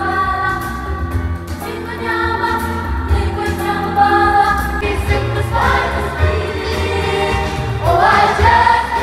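A youth choir of many young voices singing together into microphones, amplified through a stage PA over live band backing. The voices swell in rising phrases, loudest near the end.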